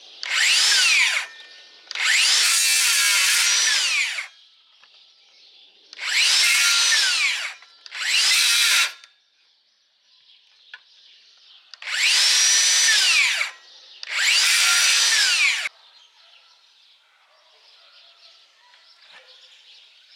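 DeWalt 60V Flexvolt DCS578 cordless circular saw cutting through tree branches in six short runs, each one a second or two long. Each run starts with a rising whine as the blade spins up and ends with a quick falling whine as the electric brake stops the blade.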